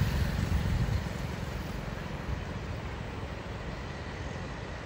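Low rumble of a vehicle passing on the bridge, fading over the first second or so, over a steady rushing noise from the flooded river.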